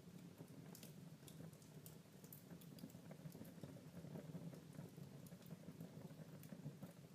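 Wood fire crackling faintly in a fireplace: scattered small pops and snaps over a low, steady background noise.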